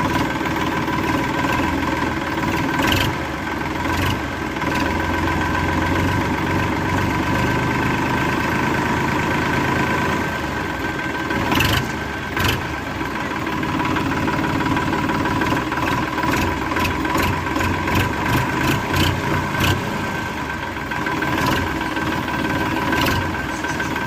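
An engine running steadily, with a constant hum and sharp clicks or knocks now and then, coming more often in a cluster in the second half.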